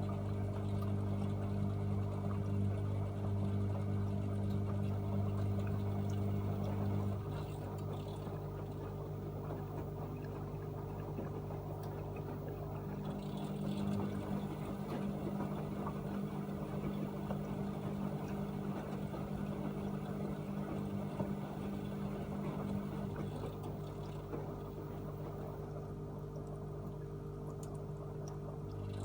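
AEG Öko-Lavamat 74780 washing machine in its wash cycle: a steady motor hum with water sloshing in the drum. The hum drops and comes back a few times as the drum's movement changes.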